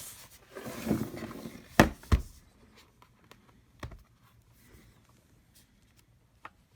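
Sharp clicks and taps from handling a MacBook Pro and small tools on a hard work surface: two loud clicks about two seconds in, a softer one near four seconds, then a few faint ticks.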